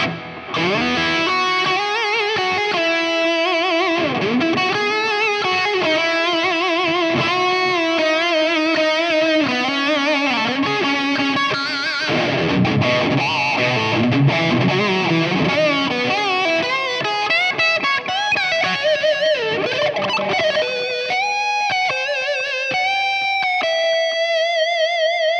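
Electric guitar lead solo on an Ibanez through a multi-effects unit's distorted solo preset: quick melodic runs with bends and wide vibrato, ending on a long held note with vibrato.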